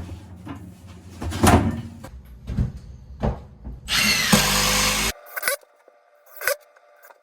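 Power-tool and building work: a tool motor running with several knocks, then a loud burst of power-tool noise about four seconds in that cuts off suddenly, followed by a couple of light clicks.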